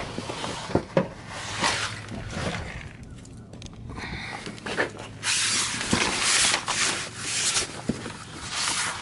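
Handling noise from a camera being moved around: rubbing and scraping, with scattered clicks and knocks, and longer, louder rustling bursts in the second half.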